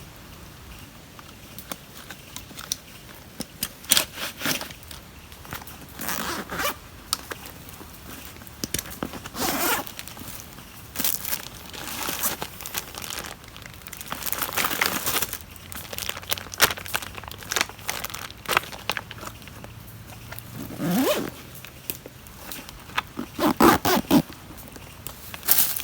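Intermittent rustling, crinkling and crunching, with scattered clicks and knocks and a couple of brief higher sounds near the end.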